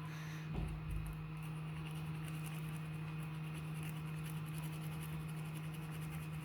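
Small brush scrubbing a phone circuit board wet with petrol to clean off flux after soldering: faint light scratching over a steady low hum.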